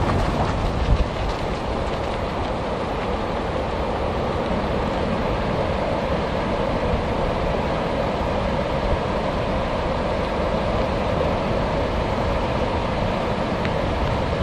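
Strong wind blowing steadily, a constant rushing noise, with heavy low buffeting on the microphone in the first second or so.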